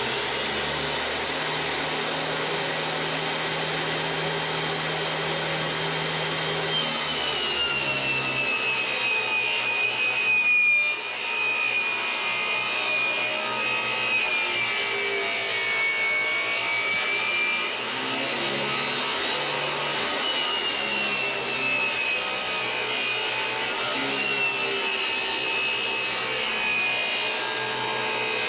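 Table saw running and ripping 5/8-inch plywood: a steady motor-and-blade noise with a high whine that sags in pitch as the blade works through the board, from about seven seconds in and again later on.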